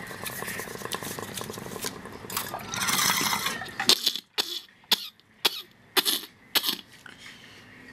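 Bong hit with the water bubbling steadily for the first few seconds, then a person coughing in a run of about five sharp coughs roughly half a second apart after a hash rip.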